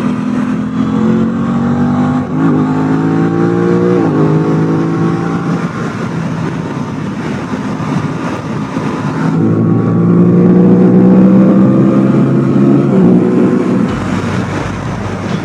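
Aprilia RS660's 659 cc parallel-twin engine through its stock exhaust, accelerating hard: the revs climb and drop sharply at two quick upshifts a couple of seconds apart, then climb again in a second pull before dropping near the end.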